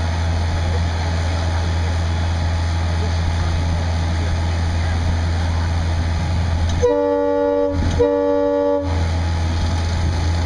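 A steady low motor hum, then a horn blown twice, about a second each, some seven and eight seconds in: the warning signal before a compressed-air pumpkin cannon fires.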